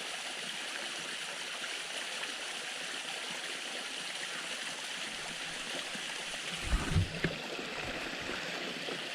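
Small waterfall with steady splashing, running water. About seven seconds in, a brief low rumble hits the microphone.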